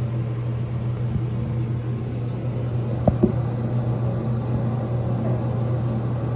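A steady low mechanical hum, with two short sharp knocks in quick succession about three seconds in.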